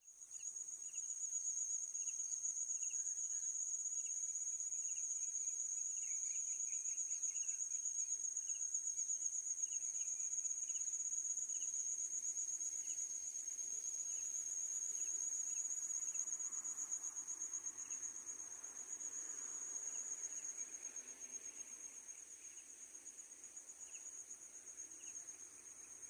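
Insects, such as crickets, trilling continuously in one high, steady, finely pulsed tone, fading somewhat in the last few seconds, with faint short chirps scattered over it.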